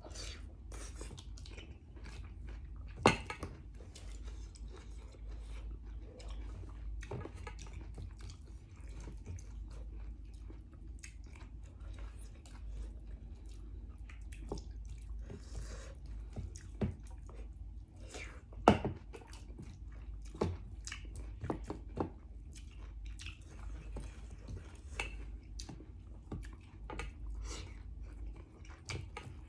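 A person chewing and eating, with small wet mouth noises and irregular soft clicks. Two sharp knocks, like a utensil striking a dish, about three seconds in and again past the middle.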